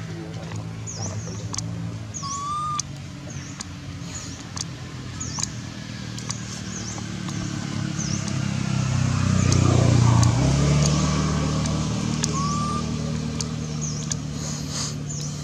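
A motor vehicle's engine hum that builds to loudest about ten seconds in and then eases off. Over it, a bird gives short high chirps at a steady pace, with a couple of brief whistled notes.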